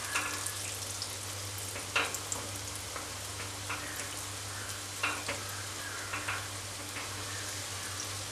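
Flour- and egg-coated egg pieces frying in hot oil in a pan, with a steady sizzle. A few short clicks and scrapes come from a metal spoon turning the pieces in the oil.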